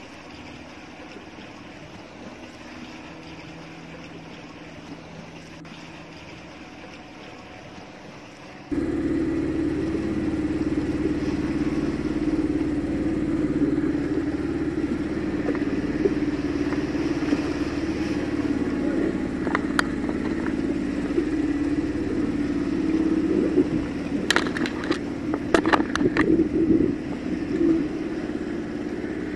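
A small engine on the fishing boat running steadily, starting abruptly about a third of the way in after a quieter low hum. Several sharp knocks and water splashing near the end.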